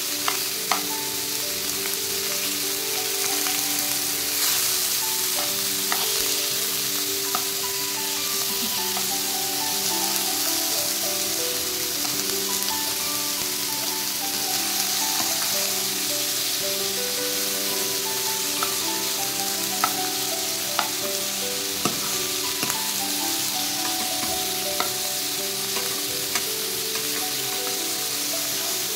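Pork belly chunks sizzling as they fry in a nonstick wok, with a steady hiss. A metal spoon stirs them and clicks against the pan now and then. Background music with a melody plays underneath.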